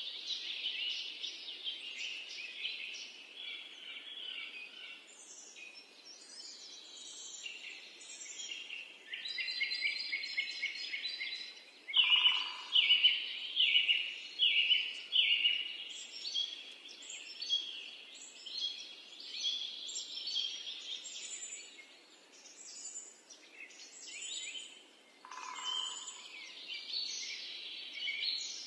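Several birds chirping and singing at once in a dense, continuous chorus of high chirps and trills. About twelve seconds in comes a louder run of repeated notes, roughly one a second, lasting a few seconds.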